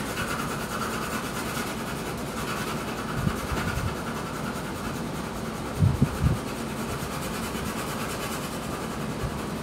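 Graphite pencil (2H) shading on drawing paper: a steady rubbing hiss of the lead across the paper, with a few soft low thumps about three seconds in and again near the six-second mark.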